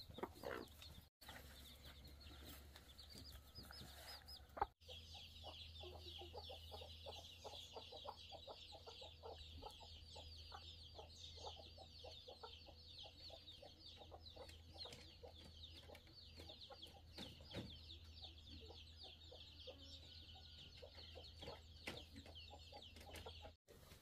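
A flock of birds chirping constantly in a faint, high, dense chatter, with short lower clucking calls among it. The sound breaks off briefly about a second in and again near five seconds.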